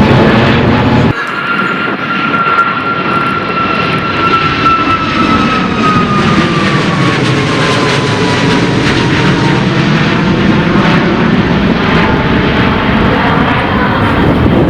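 Boeing 737 MAX 9's CFM LEAP-1B turbofans at take-off power as it climbs out past. Its engine whine falls slowly in pitch as it goes by. A sudden cut about a second in ends a different jet's take-off.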